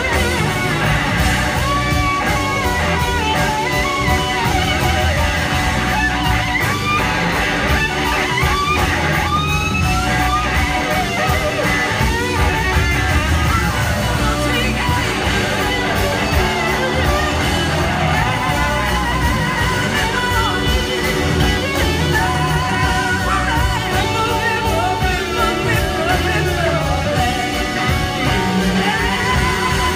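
Live blues-rock band playing, with electric guitars to the fore over bass and drums, heard from within the audience.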